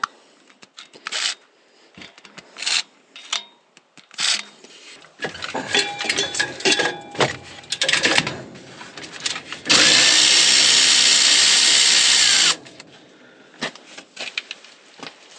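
Tool work on a truck: scattered clicks and clanks, then a power tool running in uneven spurts for about three seconds. After that comes about three seconds of loud, steady rushing noise that stops abruptly.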